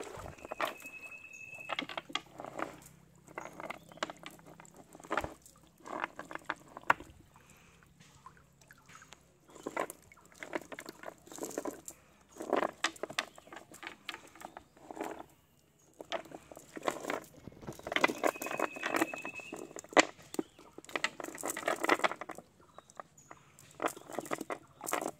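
Nylon cast net rustling and crackling in irregular bursts as it is handled and fish are picked out of the mesh on the raft, with small wet pattering and tapping. A short high whistling tone sounds twice, near the start and about three-quarters of the way through.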